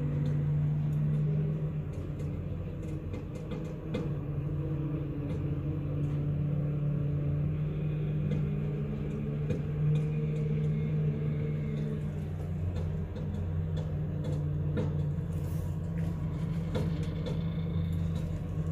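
Tow pickup's 7.3-litre V8 diesel engine running with a steady low drone, heard through the body of the truck riding on its trailer, with a few faint clicks and rattles.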